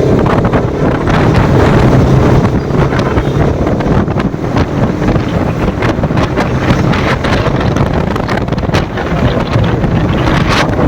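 Wind buffeting a motorcycle rider's microphone at riding speed, loud and gusty, with the motorcycle's engine and road noise underneath.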